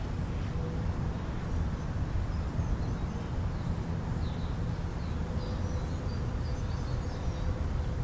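Steady low outdoor background rumble, with a scatter of short, faint, high-pitched bird chirps through the middle.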